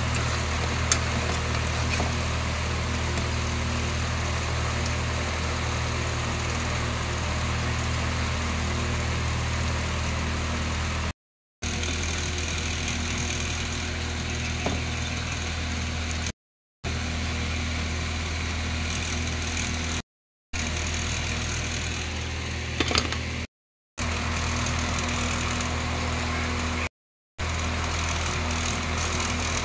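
Fish pakoras deep-frying in oil in an iron kadai, sizzling, under a steady low machine hum that is the loudest sound. The sound cuts out briefly several times, and there are a few light clicks of a spatula against the pan.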